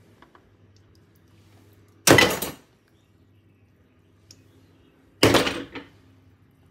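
Two clunks about three seconds apart, each a short clatter of hard objects knocking together: fermentation weights being lifted out of a jar of fermenting carrots and set down.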